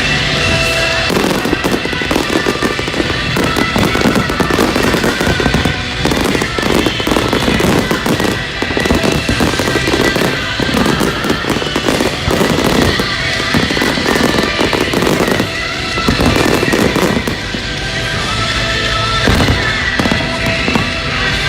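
Fireworks going off in a dense, continuous barrage of bangs and crackling, with music underneath.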